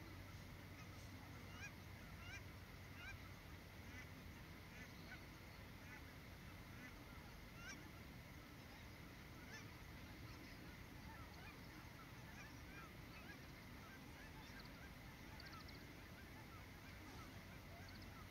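A flock of Aleutian cackling geese giving many short, high honking calls, faint and overlapping.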